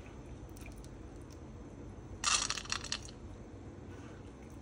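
Washed split red lentils tipped from a bowl into an empty metal pan: a brief rattle of grains hitting the metal about two seconds in, lasting under a second.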